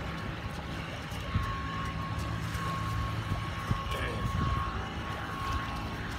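A steady engine drone, a low hum with a thin high whine held on top of it.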